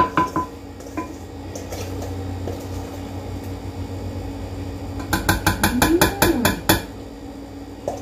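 A utensil scraping brownie batter out of a stainless steel mixing bowl, with a sharp clink at the start. About five seconds in comes a quick run of roughly ten knocks against the bowl, lasting under two seconds.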